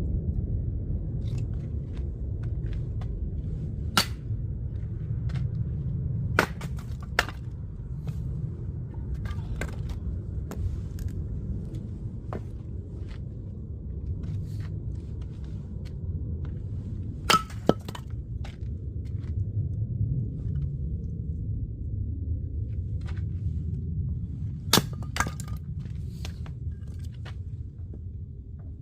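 Oak firewood cracking and splintering: several sharp, irregular snaps and smaller crackles over a steady low rumble.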